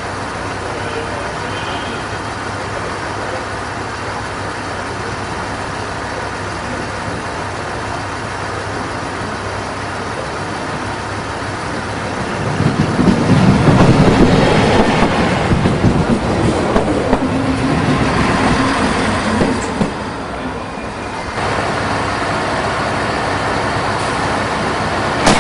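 A DB class 642 Desiro diesel railcar approaches and runs in close past. Its engine and running noise are a steady drone at first, grow much louder about twelve seconds in as it passes, and drop away around twenty seconds. Near the end the sound changes suddenly to steady station platform background noise.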